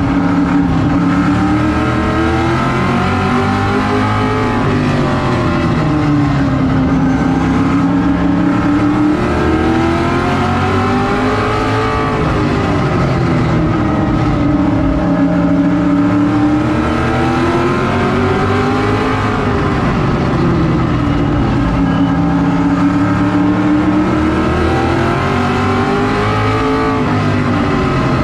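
Vintage modified race car's engine heard from inside the cockpit at racing speed. Its pitch climbs and drops in long swells about every seven to eight seconds as the car laps the oval, four times in all.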